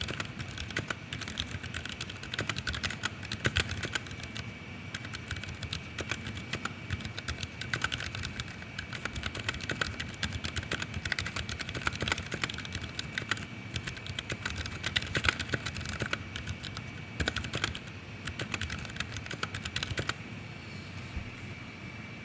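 Fast, continuous typing on a 60% mechanical keyboard with lubed Gateron Silent Yellow silent linear switches, a stainless steel plate, ABS keycaps and a low-profile aluminium case. The keystrokes stop near the end.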